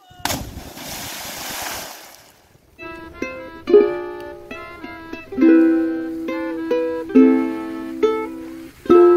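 A splash of noise lasting about two seconds as a jumper hits the water, then ukulele music, plucked notes and chords, from about three seconds in.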